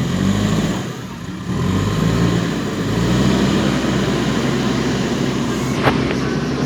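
Diesel engine of a backhoe loader running under working load, dipping briefly about a second in before coming back up. A single sharp knock sounds near the end.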